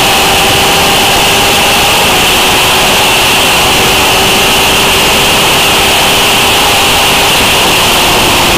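Heavy wind rush over the camera at high speed, with the 2013 Honda CBR1000RR's inline-four engine holding a steady high-rpm tone that eases slightly down in pitch.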